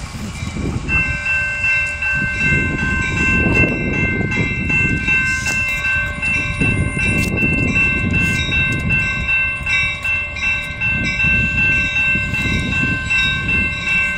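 Amtrak Hiawatha passenger train approaching. A steady set of high tones starts about a second in and holds without a break, over a low rumble.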